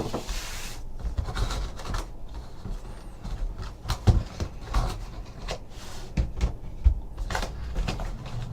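Hands opening a sealed box of baseball cards: rustling of the wrapping and cardboard, with scattered short clicks and taps as the packaging and cards are handled.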